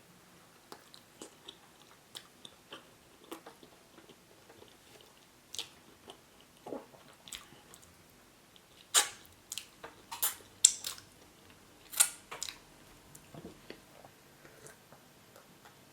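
Close-up chewing of yam with spinach and stockfish, eaten by hand: scattered wet mouth clicks and smacks, with a run of louder, sharper smacks a little past halfway.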